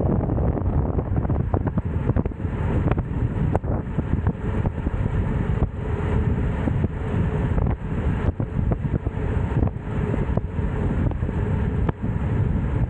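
Wind rushing over the microphone of a bicycle-mounted camera while riding at speed, mixed with steady road rumble and frequent small knocks and rattles through the mount.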